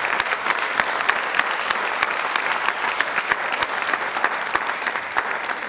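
Studio audience applauding, many hands clapping together, dying away near the end.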